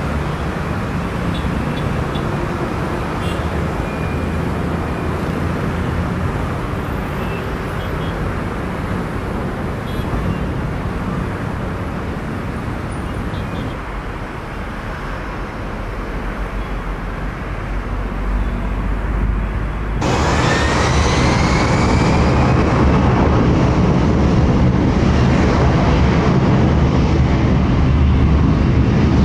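Jet airliner engines: a steady rumble and rush, then, after a cut about two-thirds through, louder, with a rising engine whine.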